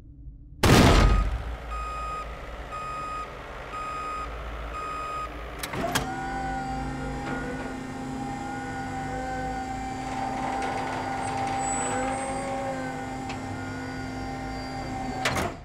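A heavy clunk, then five electronic warning beeps like a reversing truck's, about one every eight-tenths of a second. After a click, a machine's electric motor starts and runs with a steady whine, then stops just before the end.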